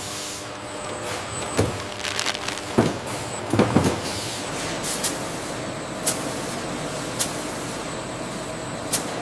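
Factory machinery running: a steady hiss with irregular knocks in the first few seconds, then sharp clicks about once a second.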